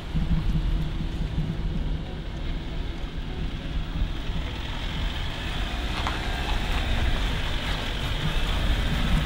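Off-road SUVs manoeuvring slowly at full steering lock on wet cobblestones: a steady low engine hum with tyre and road noise, growing a little louder in the second half as the Jeep Wrangler 4xe starts to move.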